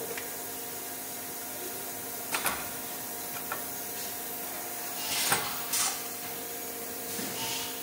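Steady industrial machinery hum with a few sharp clicks and three short hissing bursts.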